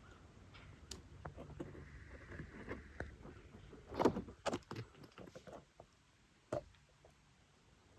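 Irregular rustling with scattered clicks and knocks, loudest in a quick cluster about four seconds in and one sharp knock a little after six and a half seconds.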